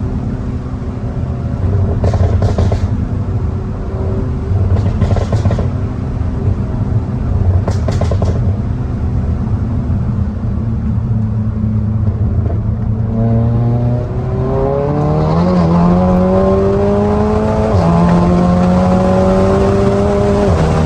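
Turbocharged 2.0 four-cylinder engine and exhaust of a tuned SEAT Cupra with a downpipe and the resonator deleted. It drones steadily at low revs for a while, then pulls hard under acceleration with the revs climbing. There is a sharp drop at an upshift, then it climbs again before the next shift near the end.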